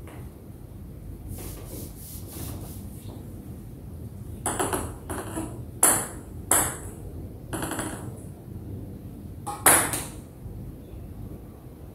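A table tennis ball being bounced, heard as a string of sharp clicks at uneven gaps. The clicks are faint at first and louder from about halfway.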